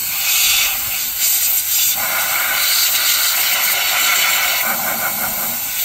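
Compressed air hissing steadily out of a disconnected push-connect air line on a Peterbilt 389's air-ride system: a lot of air coming out, because the wrong line was unplugged instead of the front airbag line.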